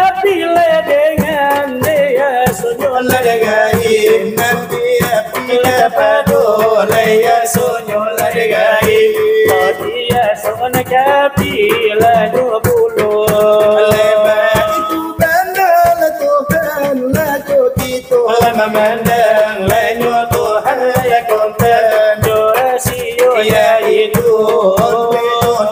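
Salawat dulang: male singers chanting a devotional song while beating large brass trays (dulang) with their fingers. The trays keep up a fast, steady clattering rhythm under the sung melody.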